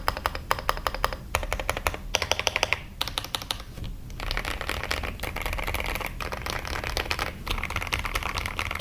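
LMK81 mechanical keyboard being typed on, its sound called thocky. Separate keystrokes at first, then from about four seconds in fast continuous typing with the strokes running together, broken by a few short pauses.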